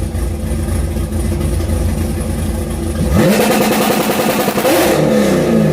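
Car engine idling, then revved up about three seconds in, held at high revs for a couple of seconds, and dropping back near the end.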